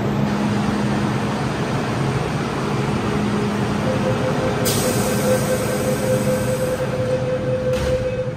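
MTR M-Train electric multiple unit at a station platform: a steady rumble and hum, a hiss about halfway through, then a held tone building as its doors close and the train starts to pull out.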